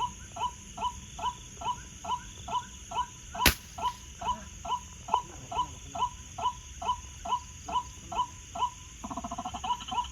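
Rhythmic animal calls at night, one short falling note repeated very evenly about two and a half times a second. A single sharp crack about three and a half seconds in, and a faster rattling call joins near the end.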